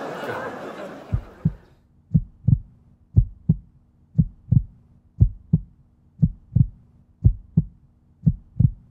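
Heartbeat sound effect: pairs of low thumps, about one pair a second, over a faint steady hum. Audience noise fades out in the first two seconds.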